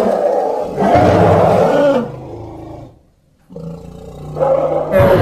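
Indian rhinoceros sound-effect calls: loud, pitched animal calls, breaking off briefly about three seconds in, then a lower call that builds into another loud call near the end.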